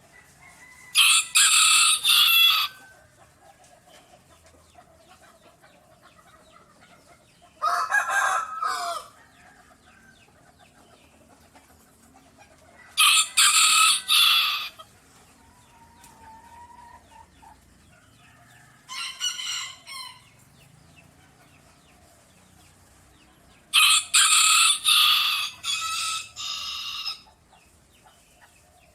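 A rooster crowing five times, about five to six seconds apart, the fourth crow fainter and the last one the longest. Faint chicken clucking sounds between the crows.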